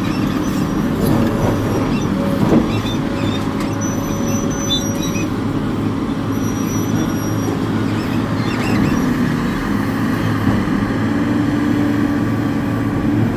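Hitachi 890 excavator's diesel engine running steadily under working load, with two brief faint high-pitched squeals in the middle.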